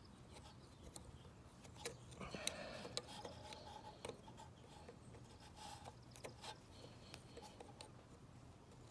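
Faint metal clicks and scraping of needle-nose pliers picking at the valve keepers on a compressed valve spring retainer of a Toyota 22RE cylinder head, with a short scraping stretch about two and a half seconds in.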